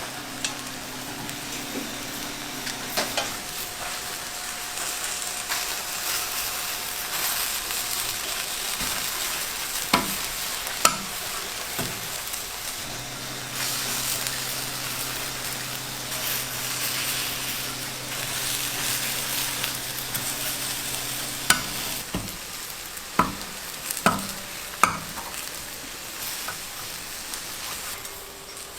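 Food frying and sizzling in a hot pan or on a griddle while it is stirred, with several sharp utensil knocks, a cluster of them near the end.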